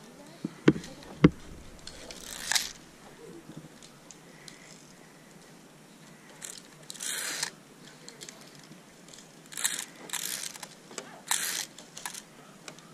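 Two sharp metallic clicks about half a second apart near the start, then several short bursts of scraping and rustling, from a zip-line harness's clips being handled on the course's safety cable.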